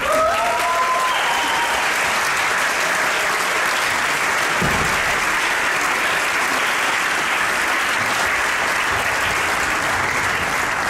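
Audience applauding steadily, with a few whoops and cheers in the first second or so.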